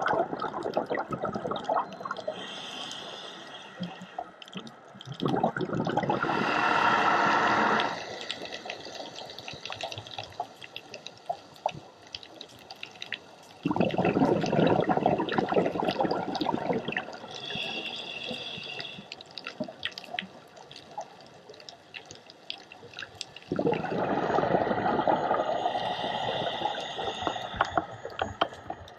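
Scuba diver breathing through a regulator underwater: long rushes of exhaled bubbles about every ten seconds, with fainter hissing inhalations between them and a scatter of small clicks and crackles throughout.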